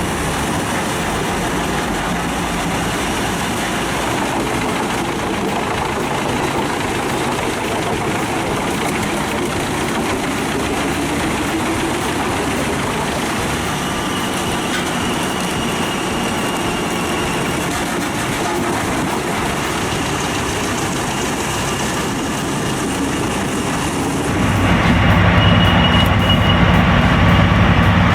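Large wood chipper running under load with its big diesel engine, a steady dense mechanical roar as it chips wood. About 24 seconds in, a louder, deeper engine sound takes over.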